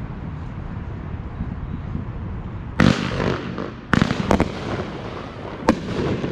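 Fireworks going off. A loud bang about three seconds in trails off in crackling, and three more sharp bangs follow over the next three seconds, over a steady low rumble.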